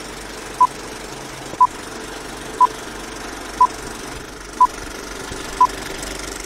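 Film-leader countdown sound effect: six short beeps at the same mid pitch, one each second, over a steady rattling whirr like an old film projector running.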